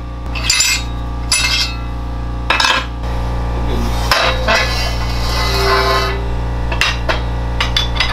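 Steel tube clanking against the metal die and frame of a pipe bender as it is shifted and lifted out: several sharp metal knocks over a steady low hum, with a stretch of hiss in the middle.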